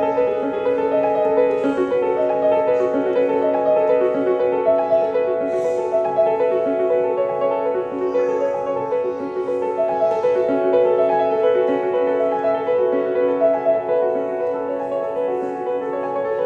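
Solo piano playing a repeating figure of notes that ring on and overlap.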